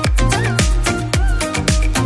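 Upbeat background dance music with a steady kick drum about twice a second under a bright synth melody.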